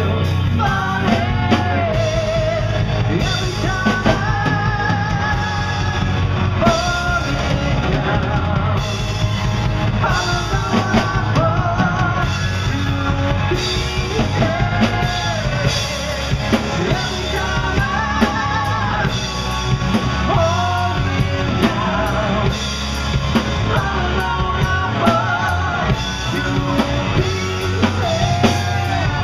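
Live rock band playing: a male lead singer sings over drum kit, bass and electric guitar.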